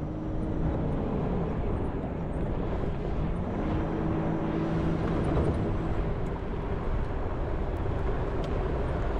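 A vehicle engine running steadily under a broad rush of wind and travel noise, its engine note shifting a little about three seconds in.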